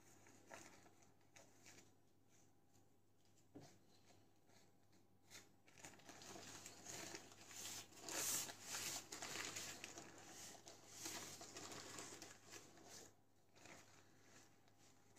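Baking paper under a sheet of puff pastry crinkling as hands lift it to roll the pastry up. A few faint taps come first, then a steady rustle that is loudest about eight seconds in and dies away near the end.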